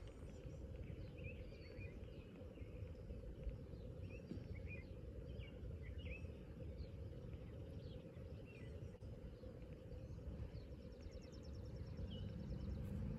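Outdoor ambience on a grassy golf green: small birds chirping now and then over a steady low background rumble. Near the end comes a fast, high ticking trill.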